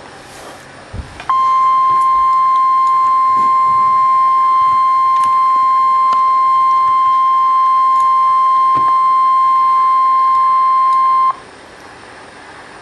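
NOAA Weather Radio warning alarm tone: one steady 1050 Hz tone held for about ten seconds over radio hiss, starting about a second in and cutting off sharply. It signals that a weather warning, here a severe thunderstorm warning, is about to be broadcast.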